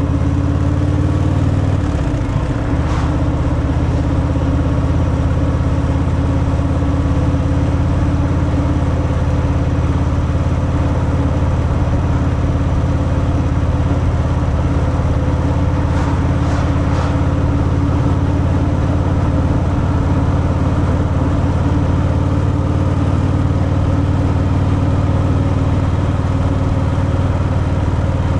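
Stock Harley-Davidson Fat Boy V-twin engine running steadily under way through its stock exhaust. The engine pitch dips briefly and comes back about two seconds in.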